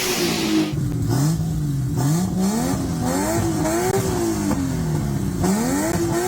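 Turbocharged RB-series straight-six with a 6Boost exhaust manifold, its engine note rising and falling several times as it revs up and down.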